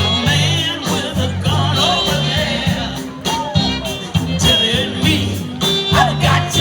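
A live band plays with a singing voice over a repeating bass line and guitar.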